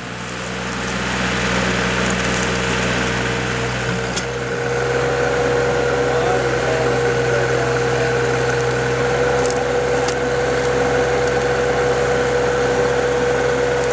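Backhoe engine running steadily under load while backfilling, with a steady high hum over it; it grows a little louder about a second in, with a few faint knocks.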